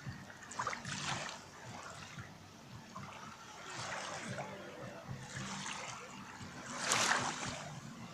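Black Sea waves washing onto the beach in repeated surges, each swelling and fading within about a second, the loudest one near the end.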